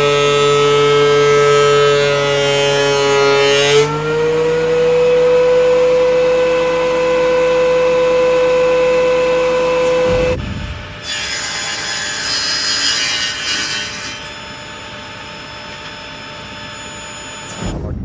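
Benchtop thickness planer running with a loud, steady high whine while planing boards to final thickness. Its pitch rises slightly about four seconds in, and the whine cuts off abruptly about ten seconds in, leaving quieter mixed noise with some high thin tones.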